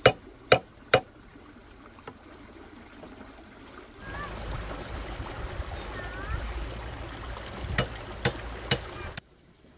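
Sharp knocks about half a second apart, then a quieter lull. After a cut, a steady rush of flowing water with three more knocks near the end, and the sound then cuts off abruptly.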